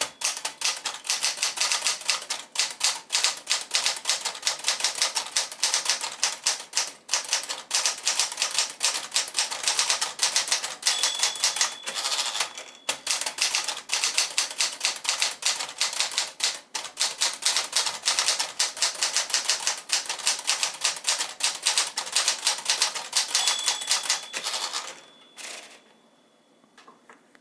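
A 1964 Sears Celebrity portable typewriter, which has a Smith-Corona 5AX Sterling mechanism, typing at a quick steady pace as a rapid run of sharp key strikes with a few short pauses. A brief ringing tone comes about 11 s in and again near 24 s. The typing stops about 25 s in.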